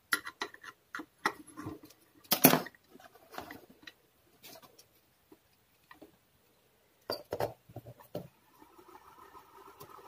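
Clicks and knocks of a two-pin plug, wires and screwdriver being handled, with a cluster of clicks about seven seconds in as the plug goes into the wall socket. Then the freshly wired four-wire ceiling fan motor, with its capacitor, is powered up for a test and starts running with a steady hum near the end.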